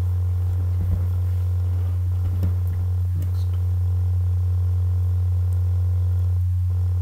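A loud, steady low electrical hum from the recording setup, with a few faint soft knocks in the first few seconds.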